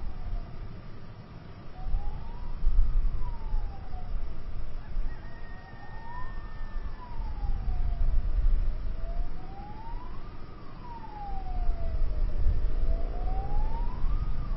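Emergency vehicle siren wailing, a slow rise and fall repeating about every four seconds, over a steady low rumble.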